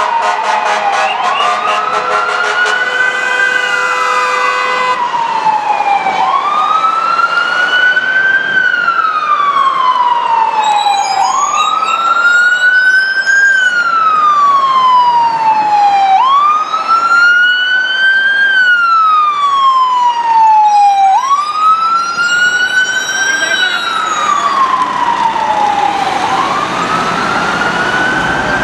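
Ambulance siren in wail mode, each cycle a slow rise then a slow fall, repeating about every five seconds. A horn sounds over it for a few seconds at the start.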